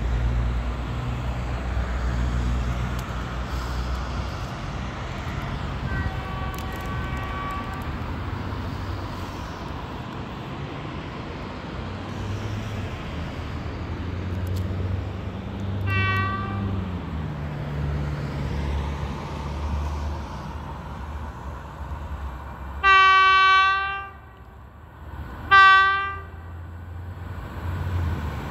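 Polish electric locomotive EP05-23 sounding its horn as it approaches: a faint blast about six seconds in, a short one midway, then two loud single-tone blasts about two seconds apart near the end, over a steady low rumble.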